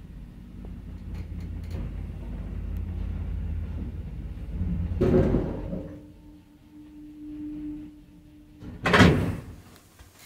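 1990 ZREMB passenger lift car running with a low rumble, then coming to a stop with a loud clunk about five seconds in. A steady hum follows for a few seconds, and the cab's sliding door opens with a loud bang about nine seconds in.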